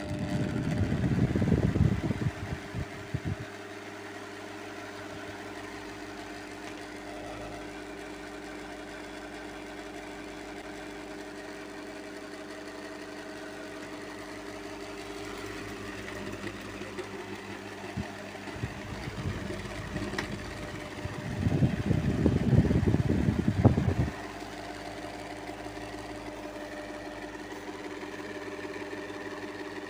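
Table fan motor running with a steady hum, with two loud rattling stretches of about three seconds each, one at the start and one about three-quarters of the way through. The noise comes from a faulty shaft.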